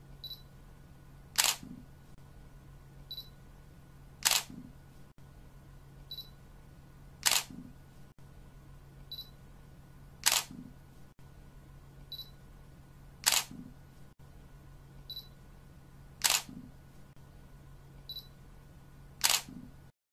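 Camera shutter sound effect repeating about every three seconds: each time a faint short beep, then about a second later a loud shutter click, seven times in all, over a low steady hum.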